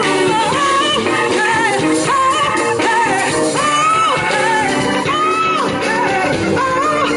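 Live R&B band: a woman belting long, wavering sung notes into a microphone over drums, electric guitar and the rest of the band.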